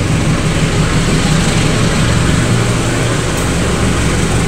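CC201 diesel-electric locomotive running under power as it pulls a passenger train away, with its coaches rolling past on the rails. A loud, steady low drone, strongest about a second to three seconds in.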